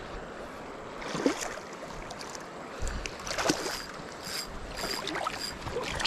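River water rushing steadily, with a few sharp splashes about a second in, around three and a half seconds, and again at the end.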